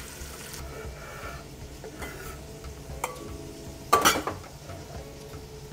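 Kitchen utensils handled at a cutting board, with faint scrapes and a click. Just after four seconds in comes one short, loud clatter, the loudest sound, as a ceramic bowl and knife are handled. A low steady kitchen hum runs underneath.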